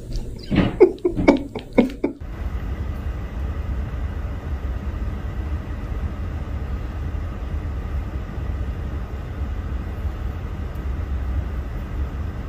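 Steady low rumble of a car's engine and road noise heard from inside the cabin. It starts suddenly about two seconds in, after a few short voice sounds.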